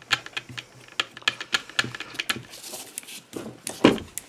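Quick, irregular clicking from the metal chuck of a Hitachi electric drill as it is turned by hand, several clicks a second. A heavier thump near the end as the drill is handled on the bench.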